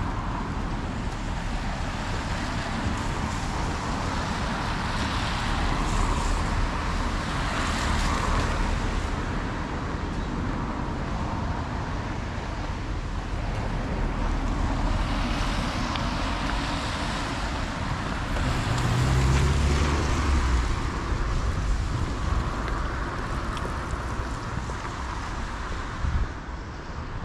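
Road traffic: cars passing on the street one after another, each swelling and fading as a hiss, with a heavier vehicle's deeper rumble about two-thirds of the way through.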